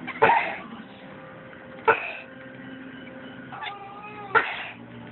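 A person coughs three times, about two seconds apart, the first cough the loudest. Between the second and third coughs, a pet cat answers with a short, wavering chattering call. Faint music plays underneath.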